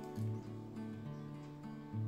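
Background music: an acoustic guitar piece, its notes changing every half second or so.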